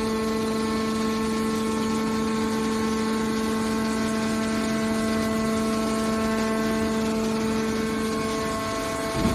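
Hydraulic can baler's pump motor running: a steady, even-pitched hum that holds without change and dies away near the end.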